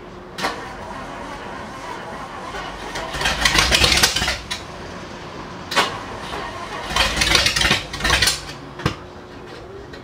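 A barn-find Ford Thunderbird's V8 being cranked in several short bursts, sputtering and dying away each time without staying running. It is being started for the first time since 1973.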